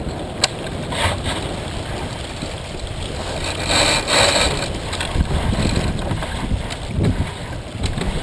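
Wind buffeting the microphone and water rushing and splashing along the hull of a heeled sailboat under way, with a louder rush of spray about four seconds in and a few sharp clicks.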